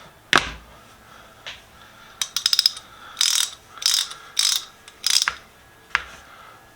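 Freshly reassembled hand ratchet being worked back and forth, its pawl clicking over the gear teeth: a sharp click, a fast run of clicks about two seconds in, then four short bursts of ratcheting and one last click near the end.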